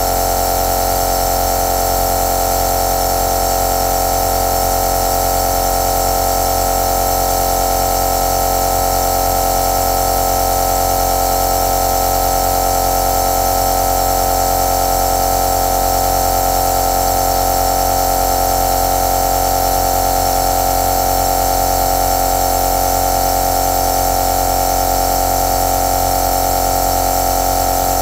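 Compressor nebulizer running steadily, a constant mechanical hum with one strong mid-pitched tone.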